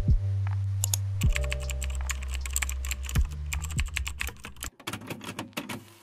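Fast, irregular typing on a computer keyboard over soft background music; the music stops about three-quarters of the way through and the keystrokes carry on alone for another second.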